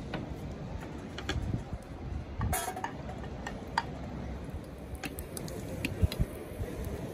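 Tongs and a wooden spatula clicking and scraping against a small titanium pan as garlic slices are set into the oil, with one louder scrape about two and a half seconds in and a few sharp ticks near the end, over a low wind rumble.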